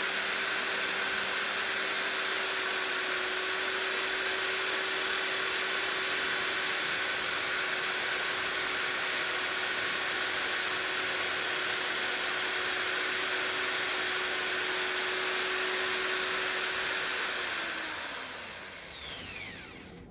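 Power drill running at a steady high speed for a long stretch, then released near the end, its whine falling in pitch as it spins down.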